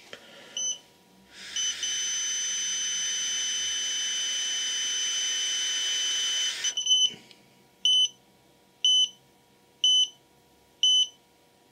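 Alcosense Zero digital breathalyser taking a breath test: one short beep, then a steady beep held for about five seconds over the hiss of breath blown into the mouthpiece. After that come a few quick beeps and then four single beeps about a second apart as it gives its reading.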